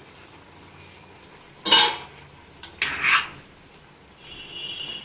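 A steel spoon stirring diced potatoes in a steel kadai, two short scrapes of metal against the pan about a second apart.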